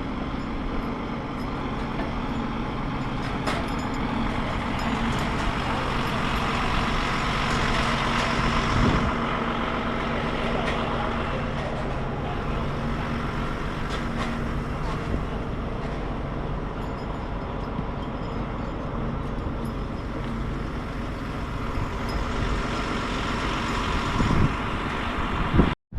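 A large vehicle engine running steadily with outdoor traffic-like noise, cutting off briefly just before the end.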